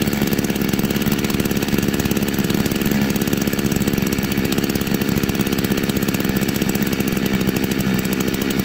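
A two-stroke chainsaw engine (a 381 build) running at a steady speed and even pitch while its carburetor mixture screw is turned with a screwdriver.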